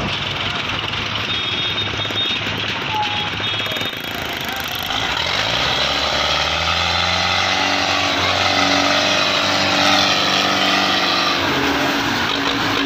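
Diesel tractor engine running under load as it tows a heavily loaded sugarcane trolley; its pitch rises after about five seconds and then holds steady.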